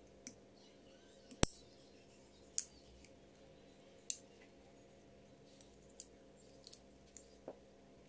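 Sharp metallic clicks and snaps of a Leatherman Charge multitool being handled, its tools and pliers jaws opened and closed: about nine separate clicks, the loudest a sharp snap about a second and a half in.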